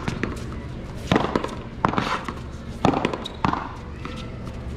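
Sharp cracks of a rubber ball being struck by solid paddles and rebounding off the wall in a one-wall paddleball rally, four hits about a second apart.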